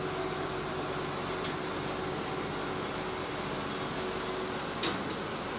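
Preet 987 combine harvesters' diesel engines running steadily, an even mechanical hum. A short click near the end.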